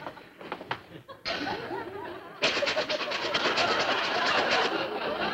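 A vacuum cleaner motor switched on about two and a half seconds in, running with a steady rushing noise. It is working as a blower through its hose to carry the broiler's smell out to the yard.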